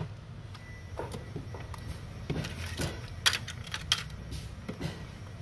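Handling clicks and knocks of a grey plastic air-conditioner control board housing being taken apart by hand: a handful of short, sharp plastic clicks spread over the seconds, above a steady low hum.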